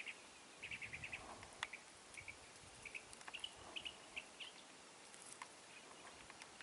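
Wild turkey calling faintly: a quick rattling series of notes about half a second in, then scattered short clucks over the next few seconds. A single sharp click comes about one and a half seconds in.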